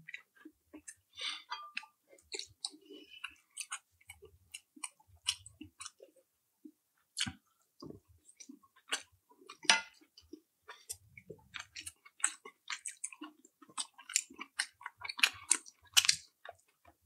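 Close-miked chewing: irregular wet smacks and small clicks of a person eating a mouthful of food.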